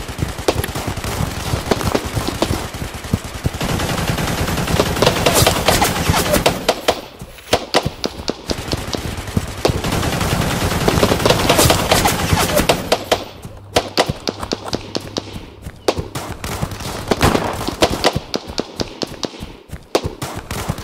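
Battle gunfire sound effects: rapid machine-gun bursts mixed with rifle shots, thinning twice to scattered single shots and growing sparser near the end.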